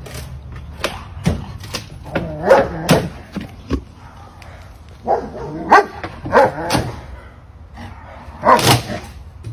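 A dog barking at someone, in about four short bursts.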